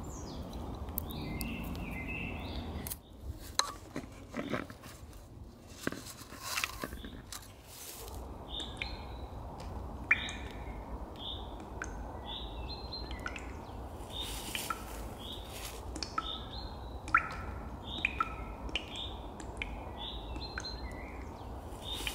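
Small birds chirping in short, repeated calls, with a few sharp clicks among them.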